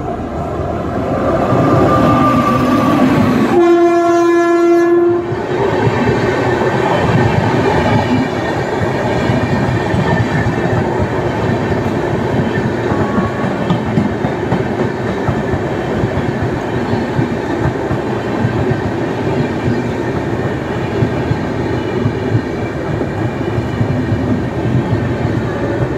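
Indian Railways electric locomotive sounds one long horn note of about a second and a half as it comes past close by. Its train of air-conditioned chair cars then rolls past with steady wheel-on-rail noise and repeated clicking over the rail joints.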